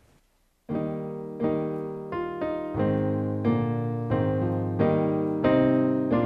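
Piano playing a slow run of sustained chords, starting suddenly about a second in, each chord ringing on and fading before the next.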